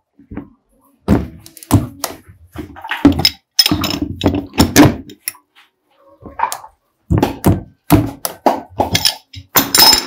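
A series of irregular thuds and knocks, with a short lull around the middle, from a plastic water tank and its pipe fitting being handled as the fitting is tightened by hand.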